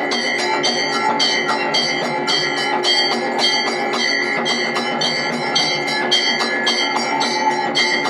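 Temple bells ringing in a fast, even rhythm, about three strikes a second, as rung during the aarti lamp offering.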